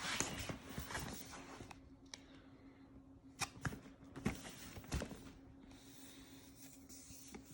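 Cardboard keyboard box and its packaging being handled: a rustle in the first second or so, then a few light knocks and taps a few seconds in, over a faint steady hum.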